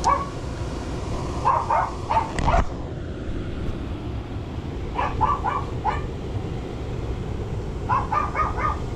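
Dog barking in three quick bursts of several barks each, over a steady low background rumble.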